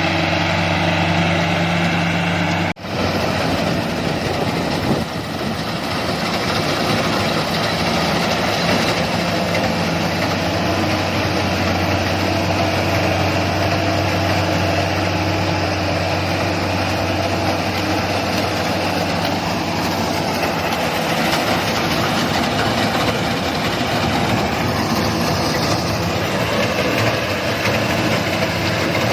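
Rice combine harvester's engine running steadily, with a momentary dropout about three seconds in.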